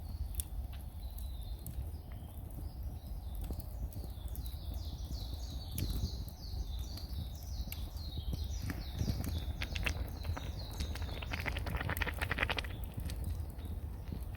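A wild bird calling a fast series of short, falling chirps for several seconds, over a steady low rumble. Near the end the chirps give way to a brief run of rapid sharp clicks.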